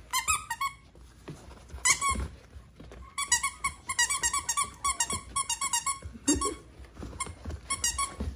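A squeaky dog toy squeezed over and over: short, sharp squeaks of the same pitch in quick runs, the longest and fastest run from about three to six seconds in.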